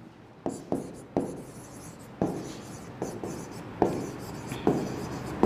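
Pen writing on the glass screen of an interactive display board: irregular sharp taps as the tip strikes the surface, with faint scratching between strokes.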